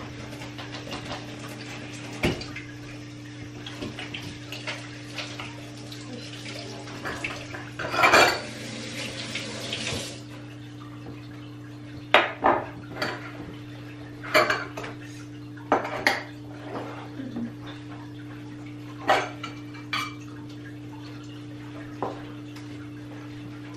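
Glass jars, a glass measuring cup and utensils clinking and knocking on a kitchen counter in scattered single strikes, over a steady low hum. About seven seconds in, water runs for a few seconds.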